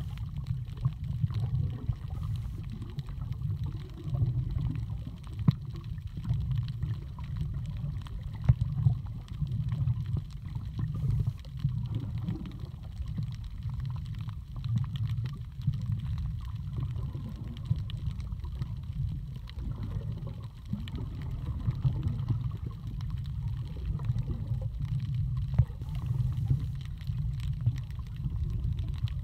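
Underwater sound picked up by a camera while snorkeling: a steady, muffled low rumble of water moving around the camera, with scattered faint clicks and crackles.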